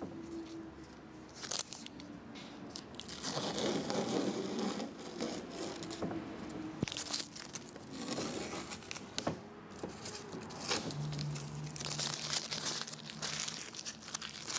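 Masking tape being peeled off a freshly spray-painted model house and crumpled, in irregular tearing and crinkling bursts.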